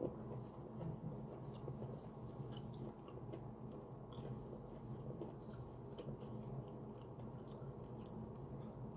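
Close-up chewing of a mouthful of fried chicken, with small wet clicks and soft crunches, over a steady low hum.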